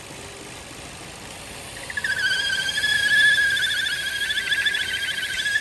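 High-pitched squealing whistle from the Vauxhall 1.6 SIDI A16XHT engine, air being sucked in past the camshaft seal. It comes in about two seconds in, holds one wavering pitch, and cuts off suddenly at the end. The owner takes it for the sign of a faulty PCV valve, the noise that goes away when the dipstick is pulled out.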